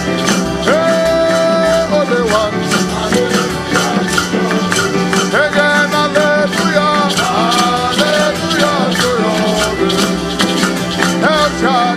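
Instrumental interlude of an upbeat gospel song: a band with a melodic lead line over a steady beat, and shaker-like percussion ticking evenly.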